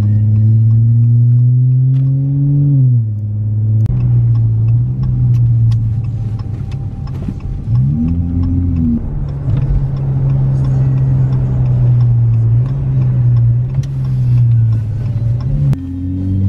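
Car engine heard from inside the cabin while driving. The engine note climbs for the first few seconds and drops back about three seconds in, like a gear change. It rises and falls briefly near the middle, then runs steady before dipping again near the end.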